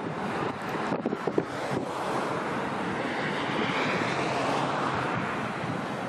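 Wind buffeting the microphone over a steady wash of sea water, with a few short knocks in the first second or so and a faint rising whine in the middle.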